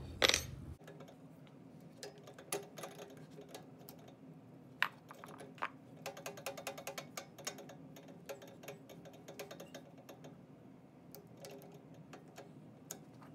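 Small metal clicks and taps of a drill press chuck being opened and closed with a chuck key while the bit is changed. There is a sharper click about five seconds in, followed by a run of quick clicks.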